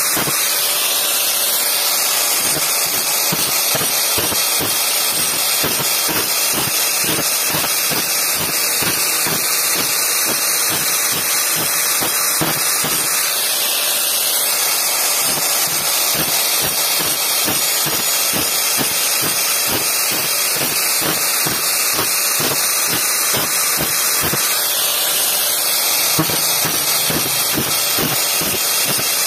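Angle grinder fitted with an old tile-cutting disc, running steadily as it grinds the teeth of a bandsaw blade. The motor's pitch sags briefly three times, about twelve seconds apart, as it takes load.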